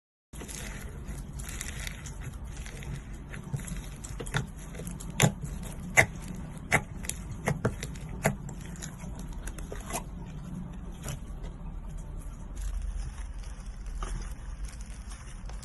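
Hands working slime, making irregular sticky pops and clicks over a steady low hiss, with a run of sharper pops in the middle.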